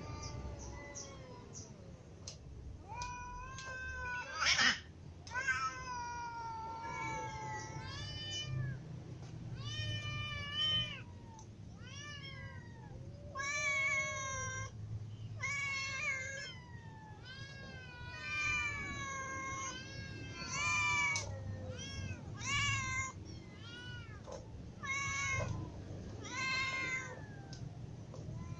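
Several hungry cats, adults and kittens, meowing over one another in a steady run of rising-and-falling calls, begging for food. One short, harsh, louder cry about four and a half seconds in.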